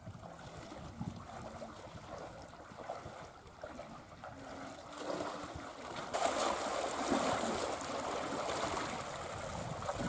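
Shallow muddy river water flowing and rippling, with splashing from people wading through it. The water gets louder about six seconds in.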